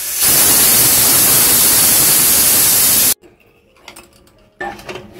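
Pressure cooker whistle venting steam: a loud hiss about three seconds long that stops suddenly, the weight lifting as the cooker reaches full pressure. A few quieter knocks and clicks follow.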